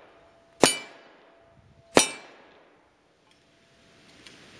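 A hanging steel target struck twice by .22 LR bullets, about 1.3 seconds apart: each hit is a sharp clang that rings out briefly.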